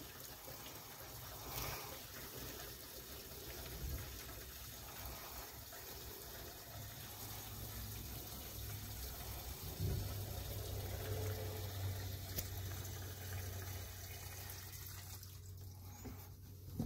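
Gasoline pouring from a plastic gas can into a Honda XR250's plastic fuel tank, a faint steady trickle as the tank fills. A low hum comes in partway through.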